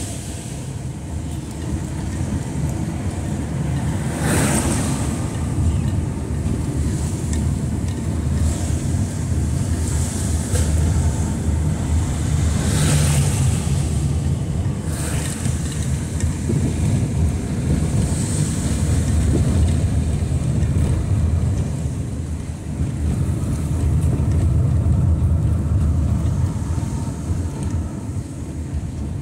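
Steady low rumble of road and engine noise inside a car driving on a wet street, with a few brief hisses, one as an oncoming car passes.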